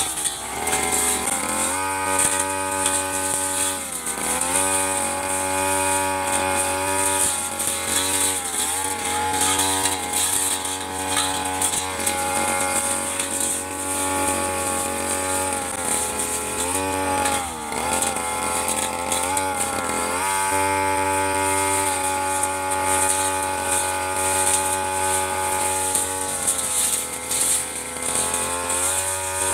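Two-stroke Stihl 3001 backpack brush cutter running at high revs while cutting grass with a large blade. Its pitch dips briefly several times as the engine bogs under the load of the grass and then recovers.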